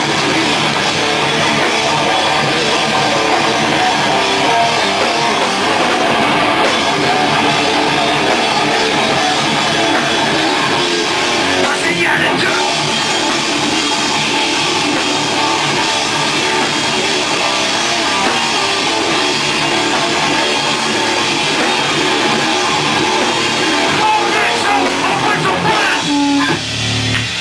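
A hardcore punk band playing live and loud: distorted electric guitars, bass and a pounding drum kit. The dense sound thins out about a second before the end.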